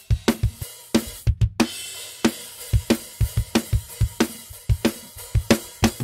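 Multitracked acoustic drum kit recording playing back: kick, snare and cymbals in a quick, steady groove, mixed with instrument EQ presets. There is a short break in the beat about a second and a half in.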